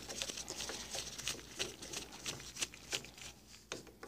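Light, irregular clicks and taps, with some rustling, from gloved hands handling small tools and screws on an outboard gearcase.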